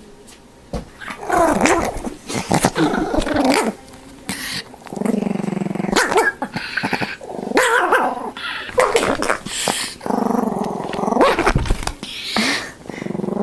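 A dog growling and barking in about five separate bouts, with low, drawn-out growls between sharper barks.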